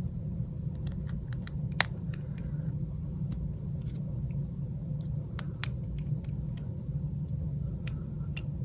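Small sharp clicks and taps of small repair tools working on a phone's screen assembly while the home button bracket screws are taken out, with one louder click about two seconds in, over a steady low hum.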